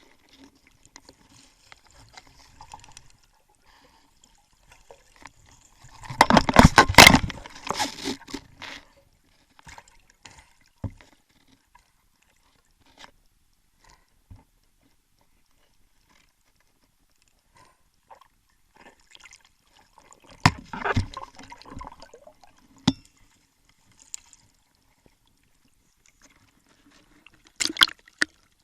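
Underwater water noise during a spearfishing dive: mostly quiet, with three bursts of rushing water and bubbles about six, twenty and twenty-eight seconds in, and a few sharp knocks between them.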